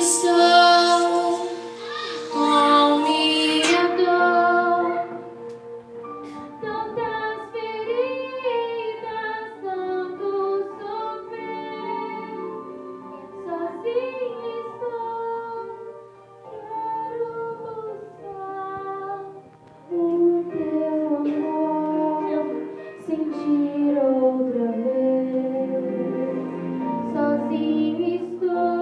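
High voices singing a song, the melody moving in short phrases over steady held accompaniment notes. The first four seconds are fuller and brighter, then the singing continues more thinly.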